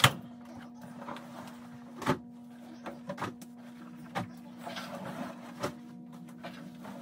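Clothes being unloaded from a front-loading clothes dryer: a sharp knock at the start, then soft knocks and fabric rustling as garments are pulled from the drum, over a steady low hum.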